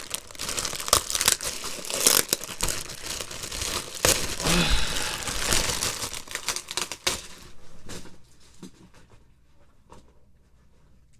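Packaging being crinkled and torn open by hand, a dense rustle with many sharp crackles for about seven seconds, then dying down to a few faint rustles and taps.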